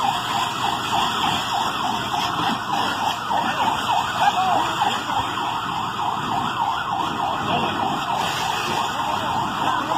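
Sirens wailing in a fast up-and-down warble, several overlapping, steady throughout.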